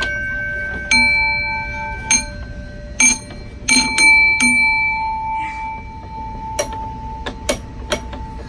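Metal chimes or bells struck by hand at an irregular pace, about a dozen strikes. Each note rings on for a second or more, at several different pitches. The last few strikes, after about six seconds in, are shorter and quieter taps.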